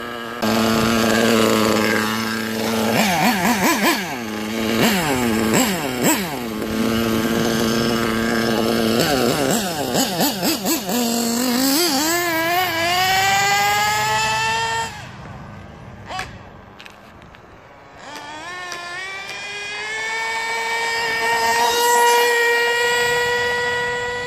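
Losi 8IGHT nitro buggy's two-stroke glow engine, geared with a 14-tooth clutch bell, idling with short throttle blips. About twelve seconds in it revs up in a rising sweep as the buggy accelerates away, falls off a few seconds later, then winds up again and holds a high steady pitch near the end.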